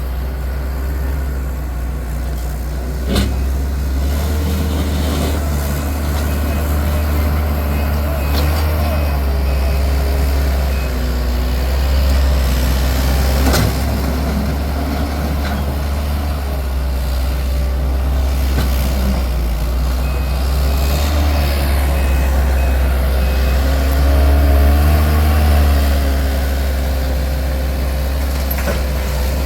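Heavy diesel work truck engine running under load, its pitch rising and falling as it works, with a couple of sharp knocks from debris. A backup alarm beeps in the second half.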